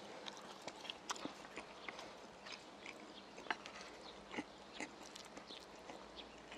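A person chewing a mouthful of rice and grilled white croaker, with many short, irregular clicks from the mouth and from wooden chopsticks picking at the food.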